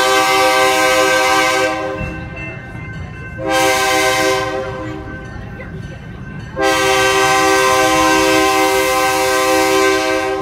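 Locomotive air horn sounding a chord in blasts for a road crossing: a long blast ending about two seconds in, a short blast, then a long blast held for several seconds, over the low rumble of the moving train.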